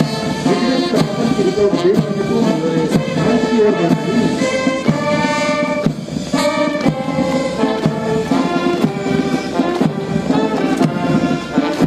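Brass band music with held brass notes over a steady drum beat.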